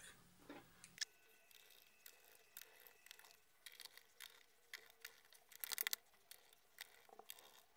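Faint scattered clicks and taps of small screws and a screwdriver on a laptop's plastic bottom cover, with a quick run of ticks about six seconds in.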